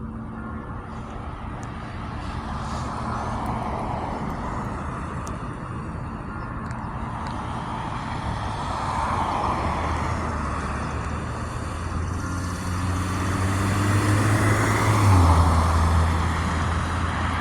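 A car passes close by: its engine and tyre noise swells over several seconds, and the low engine hum drops in pitch about fifteen seconds in, at its loudest. The last hum of a church bell dies away at the very start.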